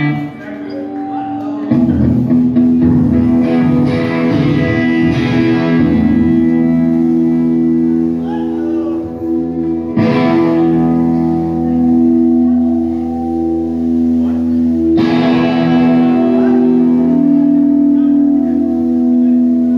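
Live rock band playing loudly, led by electric guitars holding sustained, ringing chords, with fresh hard strums about two, ten and fifteen seconds in.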